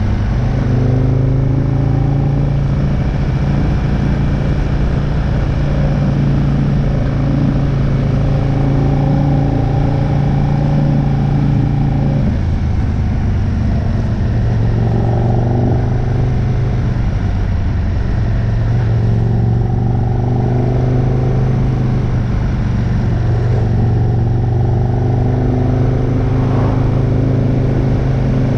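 Aprilia RSV R sportbike's engine running at steady cruising revs, heard from onboard the bike. The engine note drops about twelve seconds in, then holds steady again.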